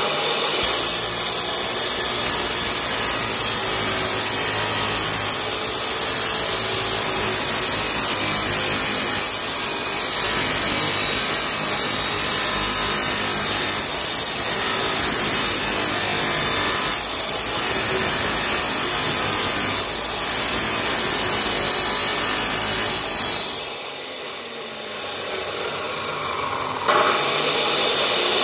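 Maktec abrasive cut-off saw grinding through a round steel pipe, its spinning abrasive wheel giving a loud, steady, harsh grind. About four seconds before the end the grind drops off for a few seconds, then rises again as the wheel goes back into the cut.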